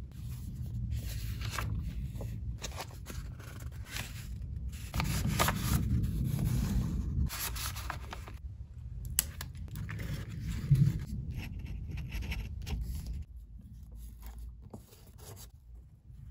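Paper rustling, rubbing and scraping as a handmade paper folder is handled and opened, in irregular strokes with a busier spell of rustling partway through.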